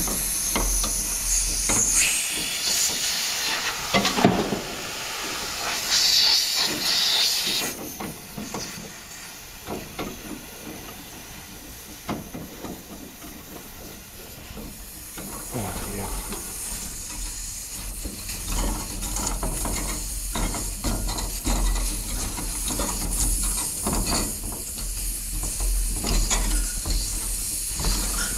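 Refrigerant hissing from a thermostatic expansion valve as its power head is held on by finger and threaded onto the still-charged valve, strongest in the first several seconds and then fading. Hand handling, small clicks and a low rumble fill the second half.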